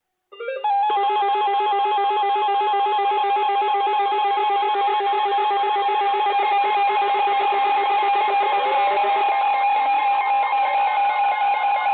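Weather radio alert alarm: a loud, steady electronic tone that starts abruptly, with a slight warble, and a second, lower tone under it that stops about three-quarters of the way through. It is the alarm that announces a warning about to be broadcast.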